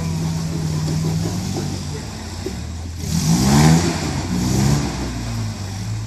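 Lifted Toyota pickup's engine working under load as it crawls up a rock ledge, revving up and down twice a little past halfway, the first rev the loudest.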